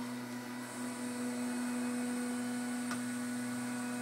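Desktop CNC milling machine's spindle running a 25 mm fly cutter at 15,000 rpm: a steady hum, with a faint high tone joining about a second in and a faint tick near the end.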